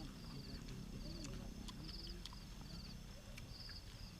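Insects, likely crickets, chirping in short, rapid trilled pulses, repeating roughly once a second, with scattered sharp clicks and a faint low background.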